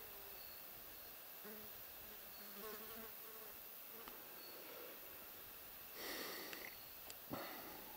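Flying insects buzzing faintly, a wavering hum that comes and goes. About six seconds in there is a brief louder rasp, and just after it a single short click with a falling sweep.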